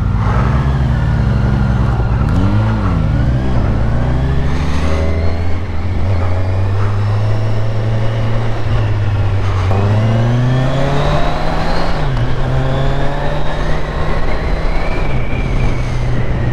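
Motorcycle engine accelerating through the gears while riding: its pitch climbs and then drops at each shift, twice, with a steady rush of wind noise throughout.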